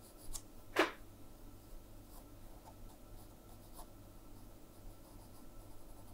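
Pencil drawing light lines on paper: a few faint scratchy strokes, the clearest about a second in.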